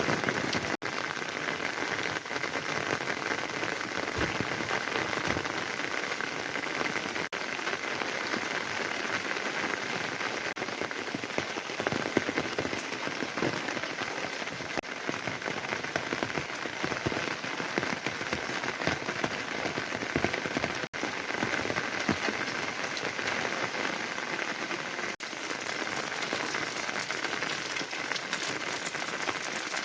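Steady rain falling. The sound cuts out for an instant a few times.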